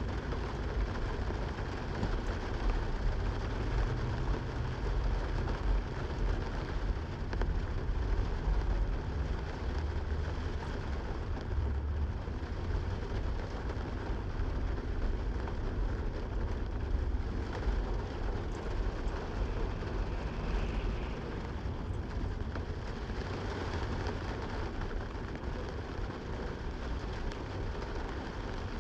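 Steady rain with a deep, uneven rumble underneath.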